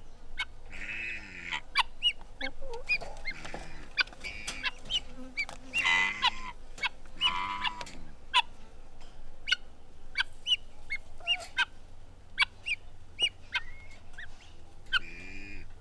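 Chicken coop ambience: many short, high peeps and chirps throughout, with a few longer, rasping hen calls about a second in, around the middle, and near the end.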